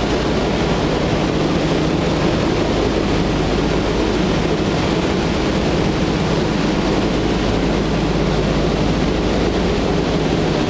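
A B-17's four Wright R-1820 Cyclone radial engines running steadily in flight, heard from inside the cockpit as a constant low drone mixed with rushing air noise.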